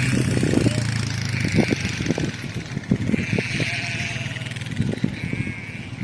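Sheep bleating, with wind buffeting the microphone.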